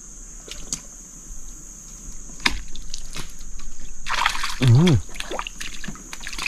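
Water splashing and sloshing, loudest about four seconds in, as a fish is pulled from the river, with a few sharp clicks before it. A short, low, wavering voice-like sound comes in the middle of the splashing.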